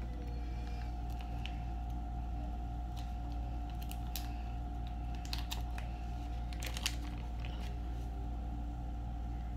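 Steady low electrical hum with a few light clicks and taps of hands handling small objects, clustered in the middle.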